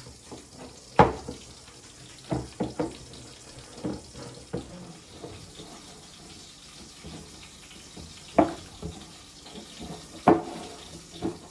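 Dough being kneaded by hand in a bowl: irregular soft knocks and squelches as the hands press and work it, a few of them sharper, over a low steady hiss.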